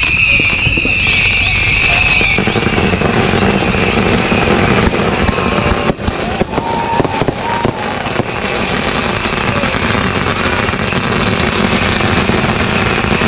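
Consumer aerial fireworks going off: scattered sharp bangs and pops, most of them between about six and eight and a half seconds in, over a steady background noise.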